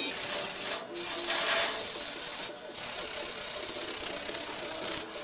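Sandpaper rubbed by hand over the steel head of an antique axe: a steady hiss of strokes, broken by two short pauses about one second and two and a half seconds in.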